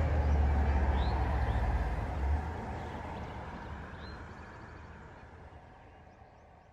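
Outdoor ambience: a low rumble that stops about two and a half seconds in, under a steady rushing noise, with a couple of short bird chirps; the whole sound fades out toward the end.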